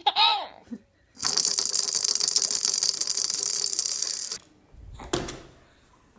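A baby's long fart: a rapid rasping rattle that starts suddenly about a second in and cuts off after about three seconds. A short low thump follows about five seconds in.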